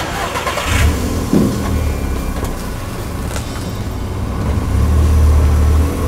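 Small hatchback car's engine starting and running at a low rumble, getting louder near the end as it is revved.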